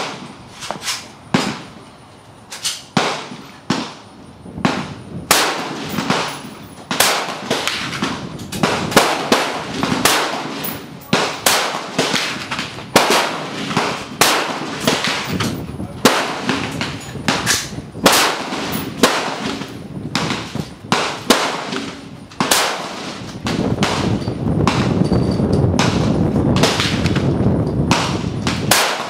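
Rifle shots one after another at a shooting range, sharp cracks coming about once or twice a second at varying loudness, near and far. A low rushing rumble joins in for the last few seconds.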